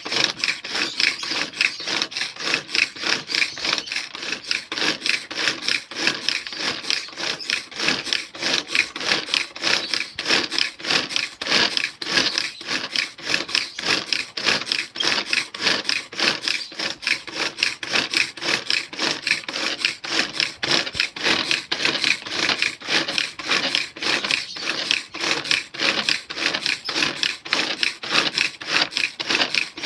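Food being worked fine by hand: a steady run of rapid, even rasping strokes, several a second, without a break.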